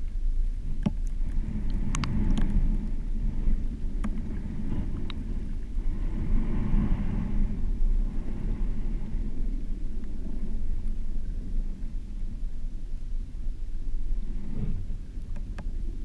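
Underwater ambient noise in shallow surf water: a steady low rumble of moving water, swelling softly about six seconds in, with a few faint clicks.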